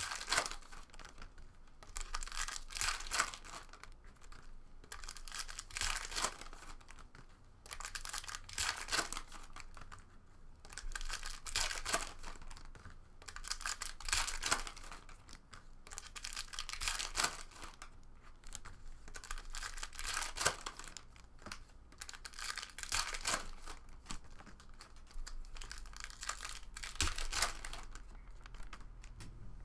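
2016 Panini Contenders Draft football card pack wrappers being torn open and crinkled one after another, with the cards handled and stacked in between, in repeated bursts of rustling every second or two.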